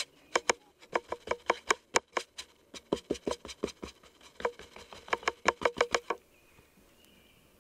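Rapid ticking clicks, about four a second with a couple of brief gaps, that stop about six seconds in.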